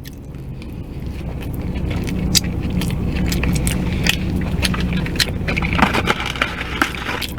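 Low rumble of a motor vehicle that slowly builds and eases off near the end, with scattered small clicks and crinkles from eating and food wrappers on top.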